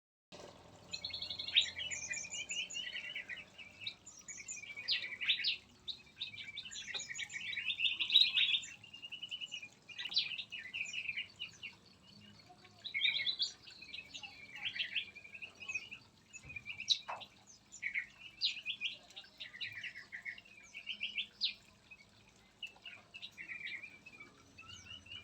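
Several small songbirds chirping and singing, with a continual mix of quick trills and short calls.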